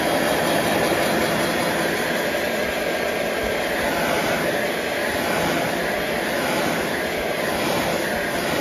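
Handheld heat gun running steadily, its fan blowing a hot air rush to dry freshly airbrushed paint on spinner blades.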